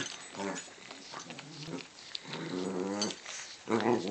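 Small dogs play-growling while wrestling each other, in several separate growls; the longest comes past the middle and the loudest near the end.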